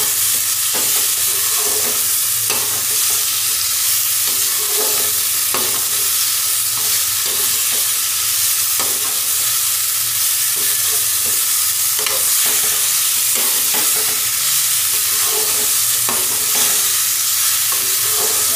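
Sliced potatoes, carrots and green chillies sizzling steadily as they fry in masala in a kadai, while a steel spatula stirs them with repeated scrapes against the pan.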